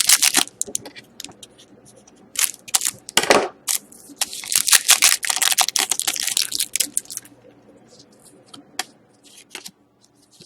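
Foil trading-card pack wrapper crinkling and tearing, with a longer stretch of dense crinkling about four to seven seconds in, then a few light clicks and taps of cards being handled.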